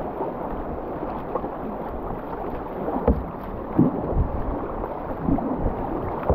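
Fast river water rushing and splashing around a whitewater kayak as it is paddled, with a few dull thumps from about three seconds in.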